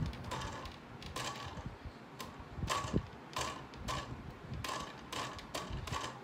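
Plastic mechanism of a Polly Pocket stage playset clicking as its light globe is turned round by hand, uneven ratchet-like clicks about three a second.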